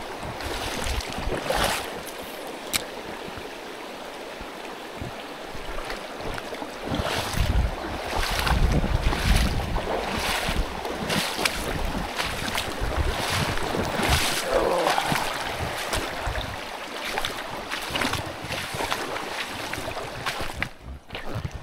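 Boots wading upstream through a shallow creek, water sloshing with the steps at roughly one a second over the steady flow of the stream. Wind buffets the microphone now and then.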